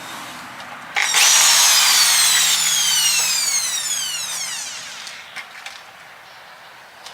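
Electric hammer drill's motor running up sharply about a second in, then coasting down, its whine falling steadily in pitch and fading over about four seconds.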